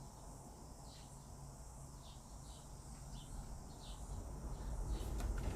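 Faint background chirping of insects: short high chirps repeating every half second or so. A low rumble swells near the end.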